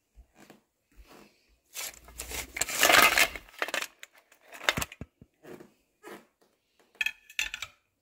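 Clam shells clattering against each other and against a plastic bowl as they are poured in from a metal colander: a dense rattle about two seconds in, then a few scattered clicks as the shells settle and are handled.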